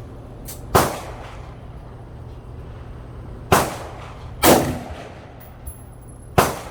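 Four gunshots fired at uneven intervals, each ringing briefly as it fades.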